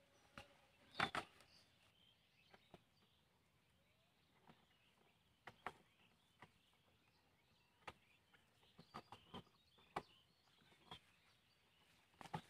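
Sparse, faint clicks and rustles of a plastic bottle fish trap and its cord being handled, with one sharper knock about a second in.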